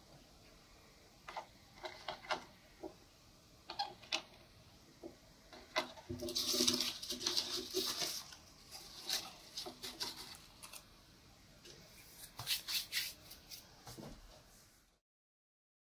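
Small clicks and light knocks of pastel sticks and small tins being picked up, packed and set down on a table, with a longer rustling scrape about six seconds in. The sounds are faint and come in scattered bursts.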